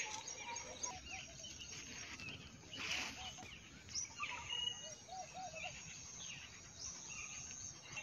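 Faint outdoor farm ambience with birds chirping and calling here and there, and a brief rush of noise about three seconds in.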